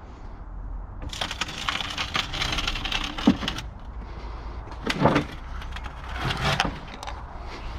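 A scrap hot water heater being dragged and shoved into a pickup truck bed: a stretch of scraping and clattering with a sharp knock, then a few separate thuds as it is worked into place.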